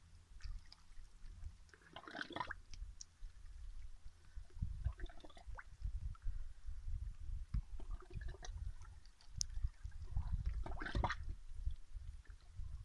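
Shallow seawater sloshing and splashing among rocks in short surges about every three seconds, over a steady low rumble.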